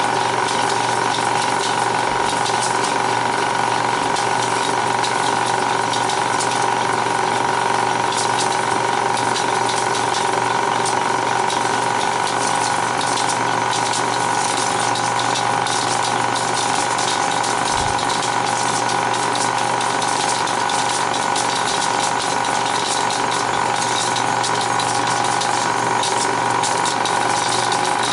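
Bell & Howell 1575A 16mm film projector rewinding film at speed: a steady mechanical whir with a clear mid-pitched tone that holds constant.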